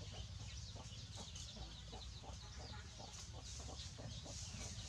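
Faint clucking of chickens: a steady run of short clucks, several a second, with faint high chirps above.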